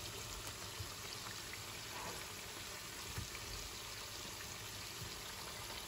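Sliced onions and red pepper strips sizzling gently in oil in a frying pan: a steady, low hiss with a few faint ticks.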